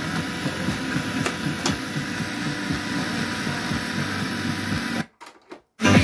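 Cassette being loaded into a Panasonic RX-ED50 boombox's tape deck, with two sharp clicks about a second in, over a steady hum from the boombox. The sound cuts out almost completely about five seconds in.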